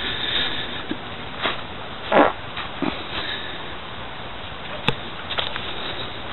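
Dry fallen leaves crunching and rustling underfoot on a walk: a few irregular crunches, the loudest about two seconds in, with a sharp click near the end.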